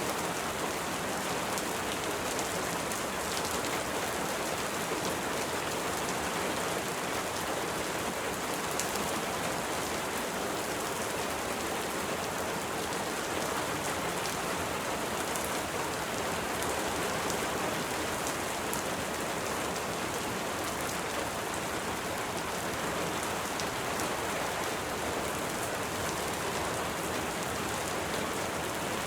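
Steady rain falling: an even hiss of rain with scattered individual drop ticks, holding at a constant level.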